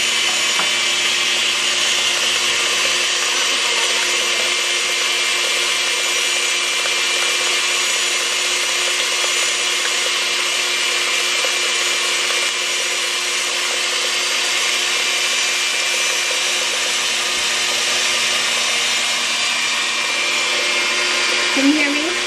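KitchenAid Classic Plus stand mixer running steadily, its motor whining as the beater mixes caramel sauce into powdered sugar for frosting.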